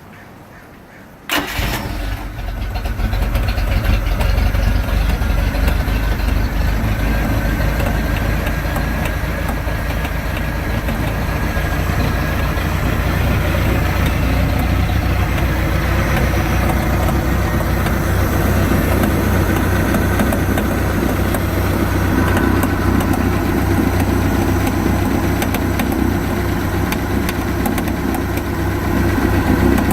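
MerCruiser 140 3.0 inline-four sterndrive engine starting about a second in and then idling, with a rapid clicking running through the engine sound. The owner cannot place the clicking, which seems to come from the rear of the motor even after a new coupler, outdrive and gimbal bearing.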